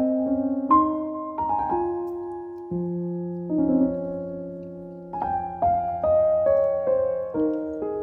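Background piano music: a slow melody of single notes and chords, each struck and left to ring.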